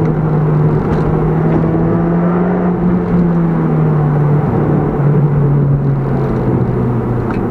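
Toyota Yaris GRMN's supercharged four-cylinder engine running hard, heard from inside the cabin over road noise. The engine note holds steady, then falls in pitch in steps over the second half.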